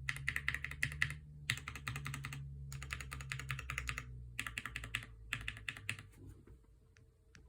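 Typing on a Bakeneko60 custom 60% mechanical keyboard with lubed linear frankenswitches (Gateron Ink Red bottom housing and spring, Gateron Yellow milky top, UHMWPE stem), FR4 plate and PBT Cherry-profile keycaps. Quick runs of keystrokes come in five bursts with short pauses between them, and the typing stops about six seconds in.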